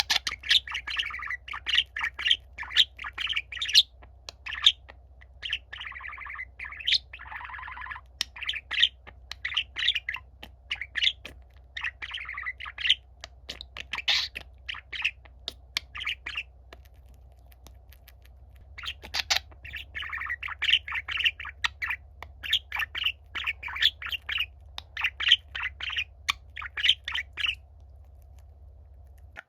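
Budgerigar warbling: a long run of rapid chirps, chatter and squawks in bursts, with a short pause about two-thirds of the way through.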